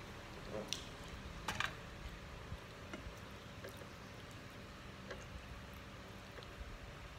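Wet mouth sounds of a person eating with his hands: smacking and sucking on his fingers. Two sharper smacks come in the first two seconds, then a few faint clicks.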